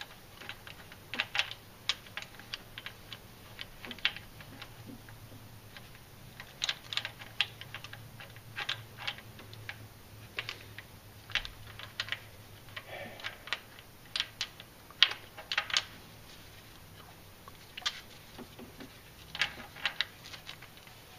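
Light, irregular metallic clicks and taps from a rocker arm being worked into place against the valve stem and solid lifter (lash adjuster) under the camshaft of a Chrysler 4.7 V8 cylinder head.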